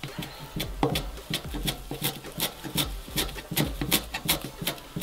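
Fresh parsley being chopped with a wide-bladed kitchen knife on a plastic cutting board: a steady run of sharp knocks, about four a second, each a thud of the blade through the leaves onto the board.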